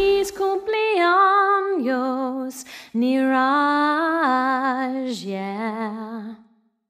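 A woman's voice singing a slow, unaccompanied melody with long, wavering held notes in a few phrases, fading out shortly before the end.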